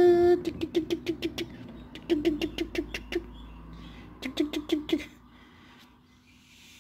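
A man's voice making quick repeated syllables, about eight a second, in three short runs, like a giggling tickle chant.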